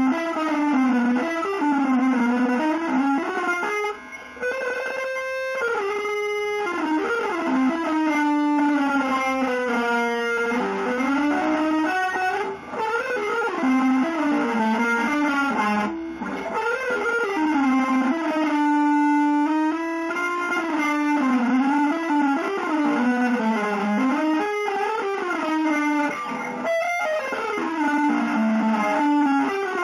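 Electric guitar playing a single-note melody of long held notes that slide and waver in pitch, with a few brief pauses.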